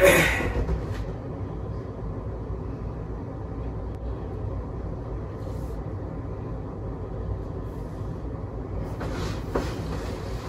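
Steady low rumbling noise with a loud, brief bump right at the start and a fainter one about nine seconds in.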